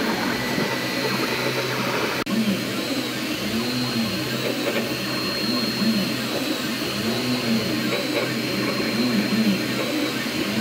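Anet A8 3D printer printing in PLA: its stepper motors whine in short rising-and-falling pitch sweeps as the print head moves to and fro, over the steady whir of its cooling fans. A single sharp click about two seconds in.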